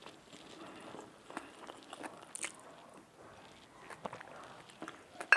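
Close, soft chewing and mouth sounds of a person eating a rice meal, with small crunches and clicks. A single sharp knock near the end.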